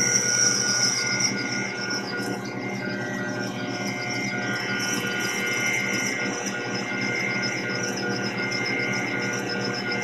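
Small CNC lathe running a turning pass on white plastic bar stock: a steady motor whine with a high, faintly pulsing hiss from the cut.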